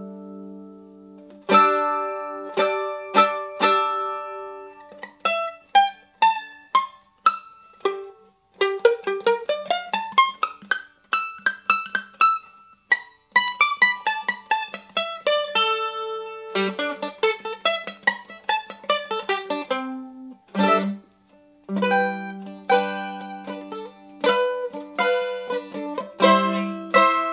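1907 Gibson A4 mandolin played solo: a tune mixing strummed chords and quick picked single-note runs, with a couple of brief pauses and fast strumming near the end.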